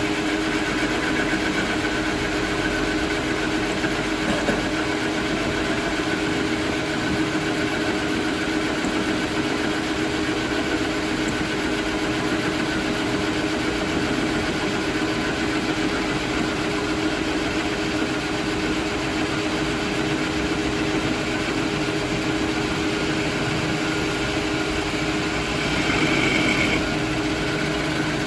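A workshop machine running with a steady hum. Near the end it briefly gets louder, with a higher squeal.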